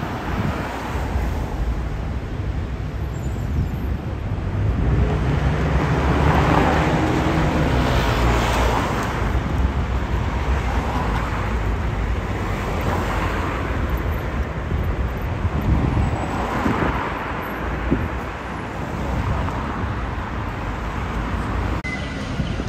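City street traffic: cars, vans and buses driving past with a steady engine and tyre rumble. A heavy vehicle goes by loudest from about five seconds in, its engine note sliding as it passes.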